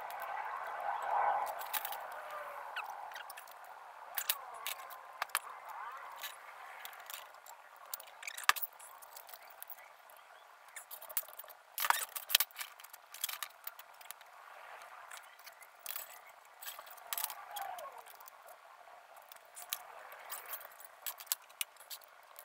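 Thin 24 gauge sheet metal strips being handled and bent by hand on a metal-topped table: scattered light clicks, taps and rattles, with two louder knocks, one about a third of the way through and one near the middle.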